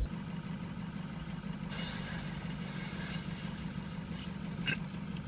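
Steady low mechanical hum, with a faint click near the end.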